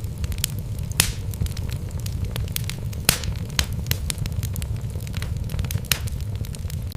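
Wood fire burning in a fireplace: a steady low rumble of flames with irregular sharp crackles and pops from the burning logs, two louder pops about one and three seconds in.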